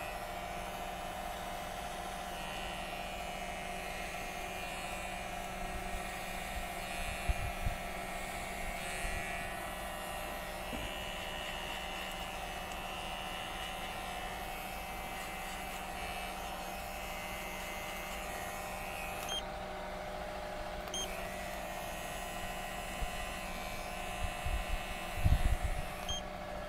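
Cordless electric hair clipper running with a steady hum as it trims hair over a comb, with a few soft handling bumps.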